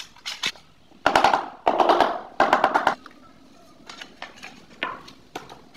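Rapid run of sharp clicks and knocks, hard objects striking, loudest from about one to three seconds in, followed by a few scattered single taps.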